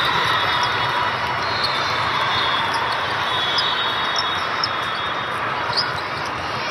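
Indoor volleyball court during play: a steady hubbub of players and spectators, with frequent short high squeaks and light ball or shoe sounds on the hard court.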